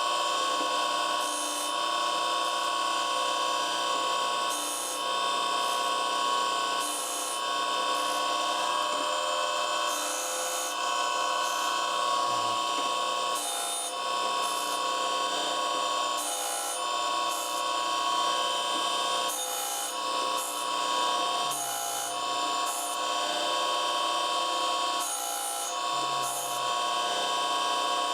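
Surface grinder's spinning wheel grinding the top face of a forging tool (drift), a steady whine with a harsher hiss that swells and fades every second or two as the wheel passes over the work.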